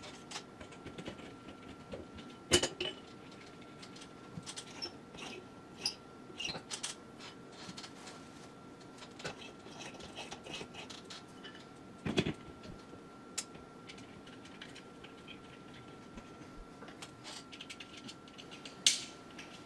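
Small clicks, taps and clinks of a ceiling light fixture's glass dome shade and bulb being handled, unscrewed and screwed back, with a few sharper knocks about two and a half, twelve and nineteen seconds in, over a faint steady high tone.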